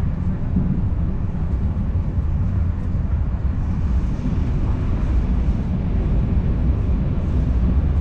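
Passenger train coach running along the track, a steady low rumble heard from a passenger seat inside the coach.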